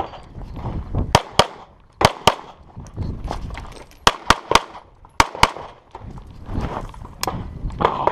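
Pistol shots fired in quick pairs, about a dozen shots in all, as a competitor shoots a practical pistol stage.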